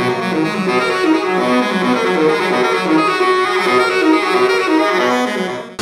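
Instrumental music led by horns, playing a repeating low figure under held higher notes, cut off abruptly near the end.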